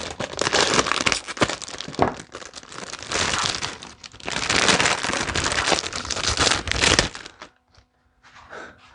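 Packaging wrapper crinkling and tearing as it is pulled open by hand, with many sharp crackles; it stops about seven seconds in.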